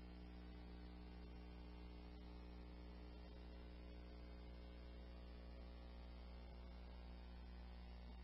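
Near silence: a steady low electrical hum with its overtones over faint hiss, the idle background of a radio-scanner recording between transmissions.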